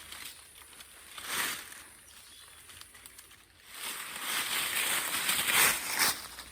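Rustling noise: one short burst about a second in, then a longer, louder stretch from about four seconds in.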